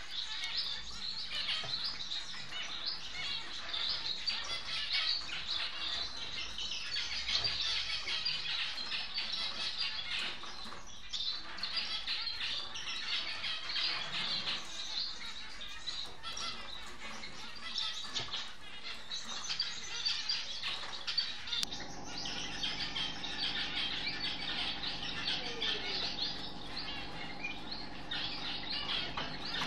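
Society finches (Bengalese finches) chirping, a dense, continuous stream of short high calls. About two-thirds of the way through, a steady low hum comes in under the chirping.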